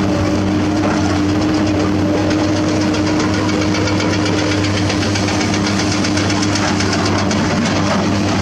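Hydraulic excavator's diesel engine running steadily under working load, heard close up as a constant hum. A fast, even clatter rises over it about two and a half seconds in and fades near the end.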